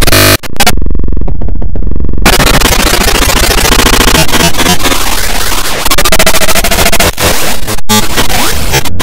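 Loud, harshly distorted electronic noise with warped synthesizer-like tones, as from audio run through heavy digital effects. It cuts out sharply for a moment just after it begins and sounds muffled for about a second and a half soon after.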